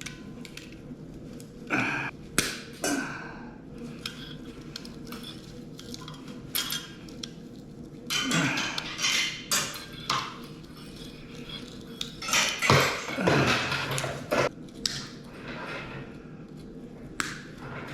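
Irregular metallic clanks, clinks and scrapes of tools and metal parts being worked and handled while copper is stripped from an old welder, with several louder bouts of scraping and knocking.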